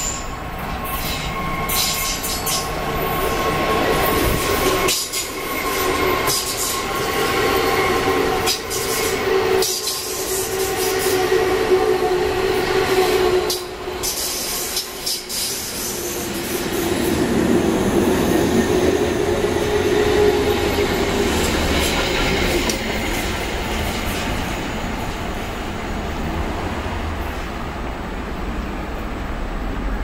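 An Odakyu 3000-series and 5000-series coupled electric train passes over a level crossing, its wheels clicking over the rail joints, and the rumble fades after about 22 seconds. For roughly the first half, steady warning tones sound over the train noise, from the crossing's alarm bells.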